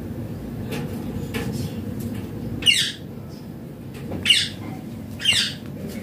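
Indian ringneck (rose-ringed) parakeet calling: three short, loud squawks in the second half, the last two about a second apart.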